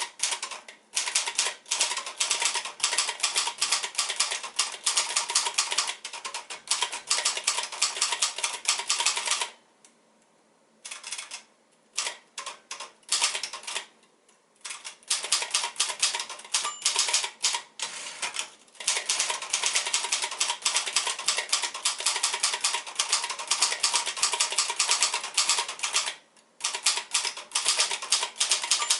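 1971 Royal Signet manual portable typewriter (built by Silver-Seiko) being typed on: fast runs of sharp keystrokes. The runs break off in short pauses, one about ten seconds in and one near the middle.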